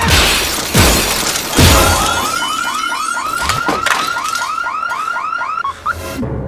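Three heavy thumps, then a car alarm whooping in quick rising chirps, about four a second, that cut off suddenly near the end.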